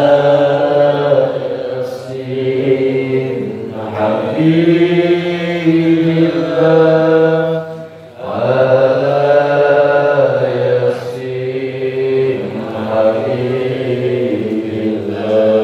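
Islamic devotional chanting (dzikir or sholawat), sung as long held melodic phrases of about four seconds each, with a brief break for breath about eight seconds in.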